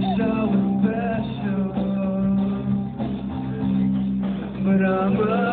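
Live band playing: a vocalist singing over guitar and drums.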